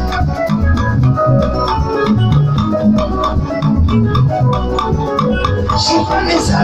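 Loud band music led by an electronic keyboard in an organ voice, with a steady drum beat and heavy bass.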